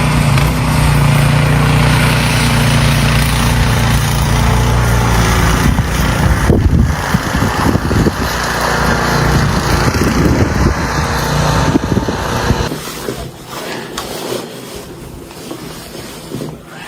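An engine running steadily under a loud rushing noise; its low hum drops away about thirteen seconds in, leaving a quieter rush.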